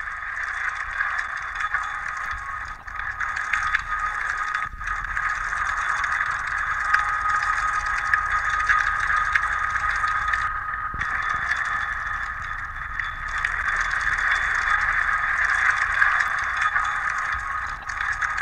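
Experimental noise music: a dense, crackling hiss held in the midrange with a thin steady high tone running through it, swelling and easing slightly and briefly thinning out twice.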